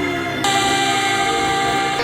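Background music: sustained synth-like chords that switch abruptly to a new chord about half a second in.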